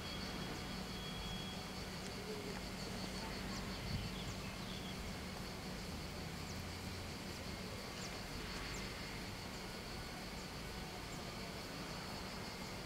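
Cicadas buzzing steadily, with scattered short bird chirps over a low steady hum.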